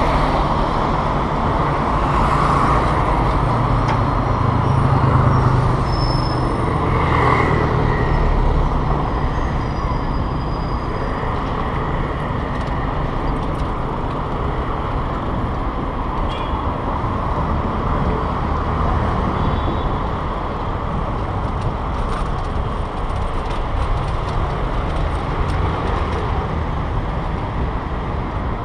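Street traffic heard from a moving bicycle: a steady rush of wind and tyre noise with cars and motorcycles running alongside, the engine rumble loudest in the first several seconds.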